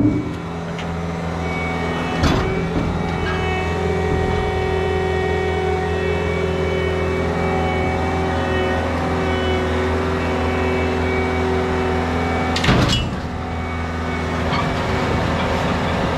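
Diesel engine of a compact tracked machine (a mini excavator or skid-steer) running steadily as it is loaded up trailer ramps, with two sharp metallic clanks, one about two seconds in and a louder one near the end.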